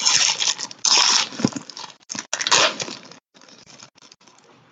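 Foil trading-card pack wrapper crinkling and tearing as it is opened by hand, in two louder bursts and then fainter crackles that die away near the end.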